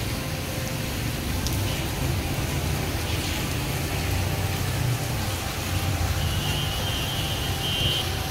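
Steady rain falling on a wet paved street and open ground: an even hiss with a low rumble underneath. A faint thin high tone comes in near the end.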